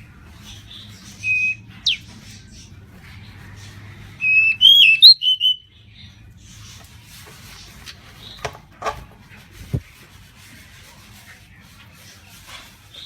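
Pied bushchat (decu) singing in loud whistled phrases: a short phrase with a quick rising sweep about a second and a half in, then a longer, warbling phrase around four to five seconds in. A few short clicks follow later over a faint low hum.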